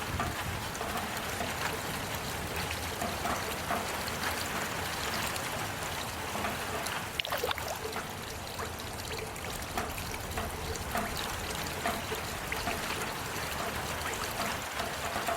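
Small garden waterfall trickling and splashing steadily, with many small drop-like splashes.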